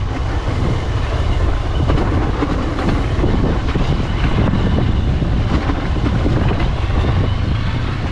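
Honda CRF150L's single-cylinder four-stroke engine running as the dirt bike rides along a rutted dirt trail: a steady low rumble with frequent small knocks from the rough ground.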